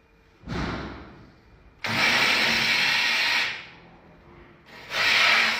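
Power drill with a hole saw cutting into a board, run in three spurts: a short one about half a second in, a longer one of about a second and a half, and another starting near the end.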